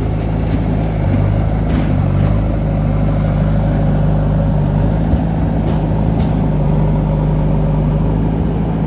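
JCB backhoe loader's diesel engine running steadily close by: a deep, even drone with a few faint knocks.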